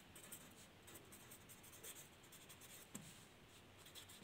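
Faint scratching of a pen writing words on lined paper.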